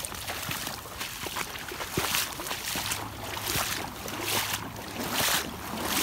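Boots wading through floodwater with floating slush, a sloshing splash with each step, roughly once a second.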